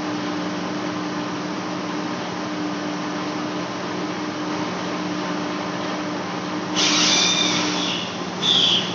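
Large lathe running as it faces a big flange: a steady machine hum with a low steady tone. About seven seconds in, a louder, higher-pitched noise lasts about a second, and two shorter bursts of it follow near the end.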